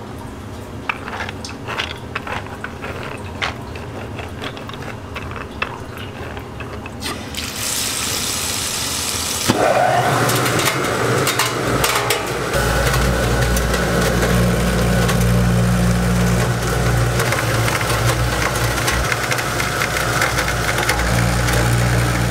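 Scattered light clicks at first, then water running into a hopper of soaked soybeans from about seven seconds in. About ten seconds in, an electric soybean grinder switches on and runs with a steady hum, growing stronger a couple of seconds later as it grinds the beans with the water.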